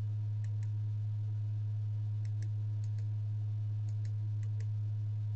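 Small remote-control buttons clicking faintly, about five quick double clicks spread across a few seconds, as a menu is stepped through. Under them runs a steady low hum.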